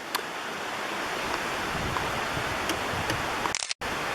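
Steady rush of a mountain creek's flowing water. It cuts out abruptly for a split second near the end.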